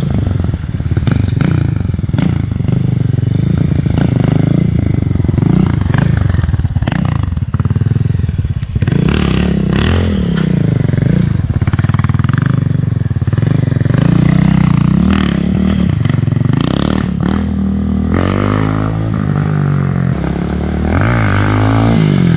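Motorcycle engine revving up and easing off over and over, its pitch rising and falling, with a few short knocks.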